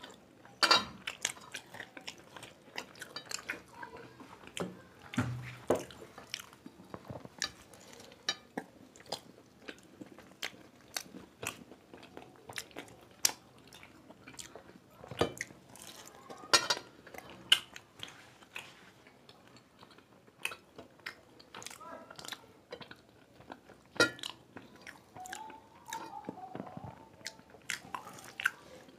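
People chewing and biting into fried samosas, the crisp pastry crunching in many irregular crackles.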